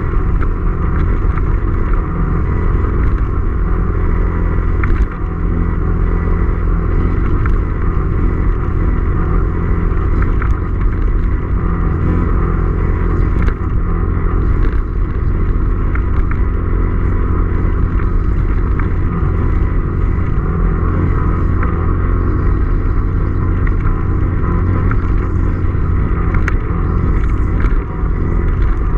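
Quad bike engine running steadily under way, recorded close up, with a few brief knocks through the ride.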